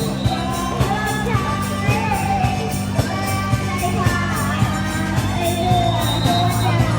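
A pop song with a singer's voice over a steady beat.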